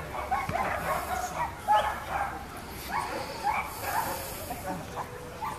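A dog barking repeatedly in short barks, about one every half second.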